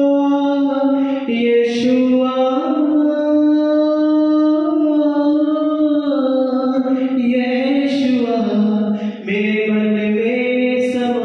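A young man singing a Hindi Christian worship song solo, drawing out long held notes that step up and down in pitch.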